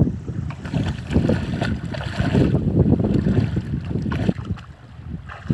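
Wind buffeting the microphone in gusts, a low rumble that swells and fades, with a couple of small sharp knocks near the end.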